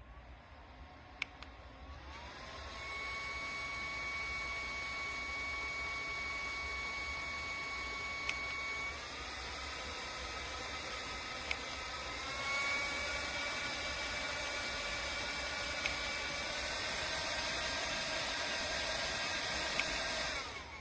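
JISULIFE handheld fan's small motor whirring: it starts up about two seconds in, steps up in pitch a few times as the speed setting is raised, with faint button clicks, then cuts off near the end.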